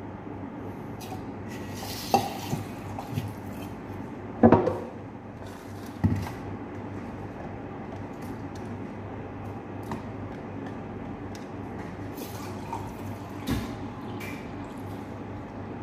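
Kitchen handling sounds: a plastic blender jug of water and dishes knocking on the counter, and lemon pieces dropped into the water, a few separate knocks with the loudest about four and a half seconds in. A steady low hum runs underneath.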